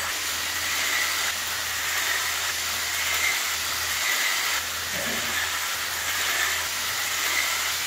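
3D-printed toy train running at speed on its plastic track: a steady whirring hiss from its motor and wheels, swelling a little every couple of seconds.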